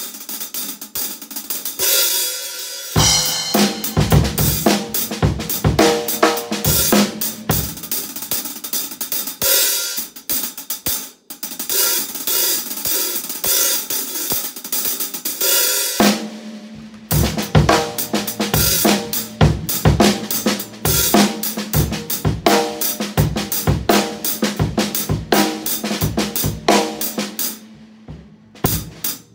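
Drum kit groove played on a Zildjian K Custom Dark hi-hat. The hi-hat plays alone for about the first three seconds, then kick and snare join.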